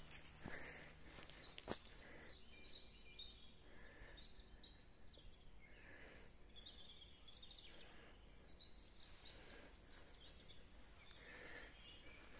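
Faint woodland birdsong: several songbirds chirping and trilling, with soft steps on a dirt path. Two sharp clicks in the first two seconds are the loudest sounds.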